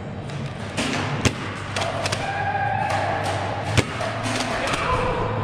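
Foam-dart blasters firing and darts striking plywood barricades: several scattered thuds and knocks, the sharpest about a second in and again near the end, over a steady low hum.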